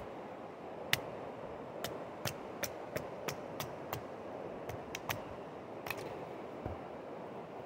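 A wooden baton striking the spine of a Bark River Mini Aurora knife to drive the blade down through an upright stick (batoning to split wood): about a dozen sharp knocks at uneven intervals, fastest around the middle, with a last pair near the end.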